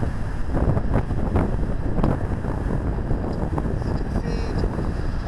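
Wind buffeting the camera microphone, a steady low rumble, with a few short knocks about one and two seconds in.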